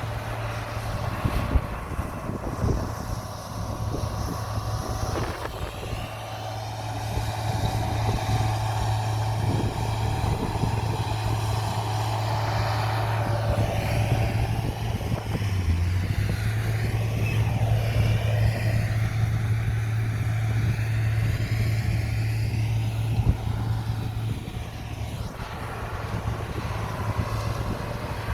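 Komatsu bulldozer's diesel engine running steadily under load while pushing soil, with a few sharp metallic clanks from the working machine: two in the first few seconds and another about 23 seconds in.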